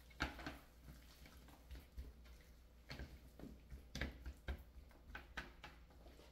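Hands rubbing olive oil over raw chicken thighs: faint, irregular wet squishes and light slaps.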